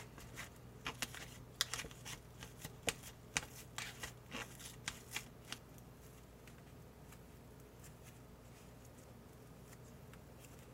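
Thin plastic Kracie Popin Cookin candy-kit tray crackling and clicking as it is bent and the candy dough is pried out of its molds: a quick irregular run of sharp crackles that stops about five and a half seconds in, leaving only faint room tone.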